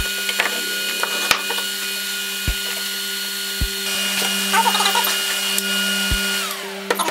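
Lengths of steel rebar being handled on a plywood workbench: scraping and clinking, with a few knocks against the wood. Underneath is a steady background hum of held tones, which partly drops away near the end.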